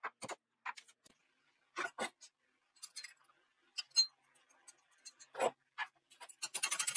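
Metal tools and parts being handled: scattered light clicks and knocks, one sharper ringing metal click about four seconds in, then rapid continuous scraping starting near the end.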